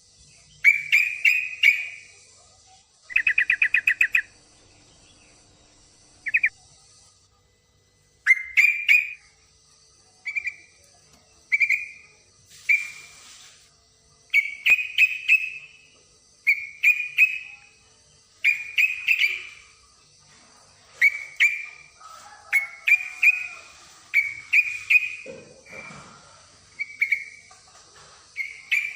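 Female yellow-vented bulbul (trucukan) calling with short, bubbly chirped phrases every second or two, plus a rapid rattling trill a few seconds in. These are the calls of a hen in breeding condition calling for a male.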